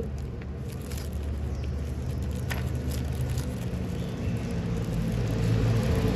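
A motor vehicle's engine running, a steady low rumble that grows louder toward the end, with a few faint crinkles and taps from a bubble-wrapped package being handled.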